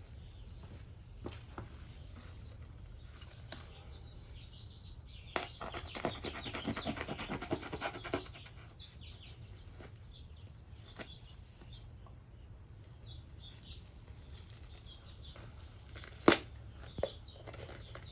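A dense crackling rustle of packaging being handled and torn for about three seconds, then a sharp click and a smaller one near the end, with birds chirping in the background.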